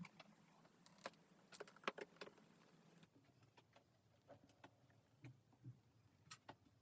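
Faint plastic clicks and light rattles as the case latches of a Topre Realforce keyboard are pulled loose to open its case. About five sharp clicks come in the first two and a half seconds, then softer, scattered ones.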